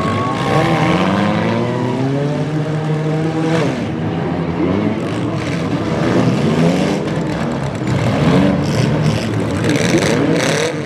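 Several demolition derby car engines revving up and down at once, with the harsh clatter of cars ramming each other a few times. A steady high whine sounds over the engines for about the first second and a half.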